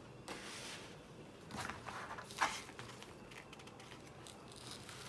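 Sheets of watercolour paper being handled, giving a series of soft rustles and brushing scrapes, with a sharper crinkle about two and a half seconds in.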